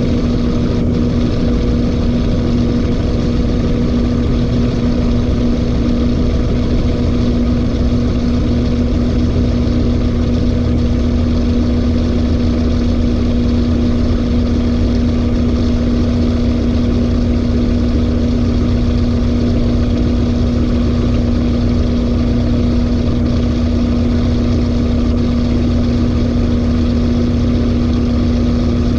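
LG 18 kg washing machine in its final spin, the drum turning at a steady high speed with a constant hum over a low rumble.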